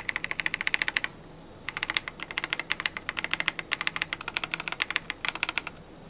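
KZZI K75 Pro 75% mechanical keyboard with Moment linear switches being typed on fast: a quick run of key presses, a short pause about a second in, then a longer rapid run of keystrokes.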